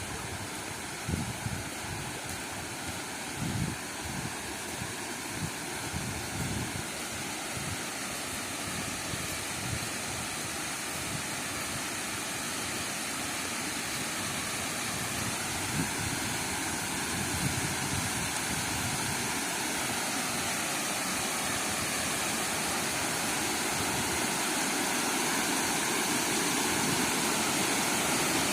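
Waterfall: a steady rush of falling water that grows gradually louder, with a few low thumps in the first several seconds.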